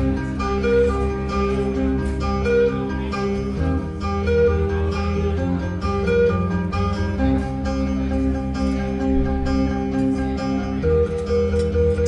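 Instrumental guitar music played live through a PA, with sustained, overlapping notes and a repeating picked figure, built up in layers on a loop pedal.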